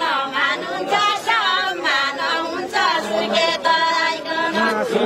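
A group of voices singing a Deuda folk song together, unaccompanied by instruments, in the far-western Nepali line-dance style.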